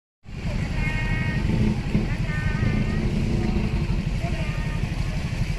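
Heavy vehicle engine running steadily with a fast, low, even rumble, starting abruptly just after the start; voices are heard faintly over it.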